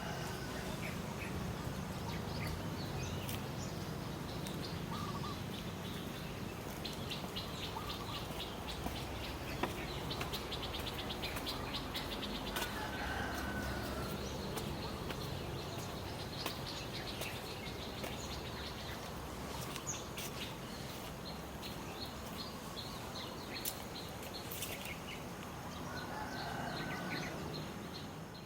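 Birds chirping, with a stretch of rapid trilling, over a steady low background hum.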